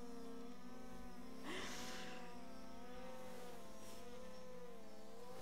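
Phantom 4 Pro quadcopter's propellers buzzing as it climbs with a soda can slung beneath it, several tones wavering up and down in pitch. A brief rush of noise about one and a half seconds in.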